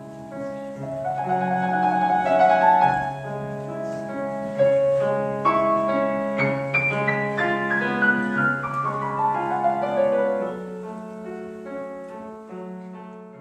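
Grand piano being played: the music swells over the first few seconds, a strong chord sounds about four and a half seconds in, then a run of notes steps downward and the playing fades near the end.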